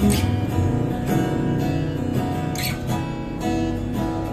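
Acoustic guitar being strummed, chords ringing between strokes, with sharp, bright strums at the start and about two and a half seconds in.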